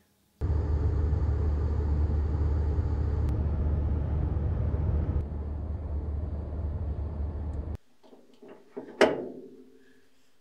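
Steady low rumble of engine and road noise inside a moving van's cabin, cutting off abruptly about three quarters of the way through. Shortly after comes a single sharp knock that rings briefly.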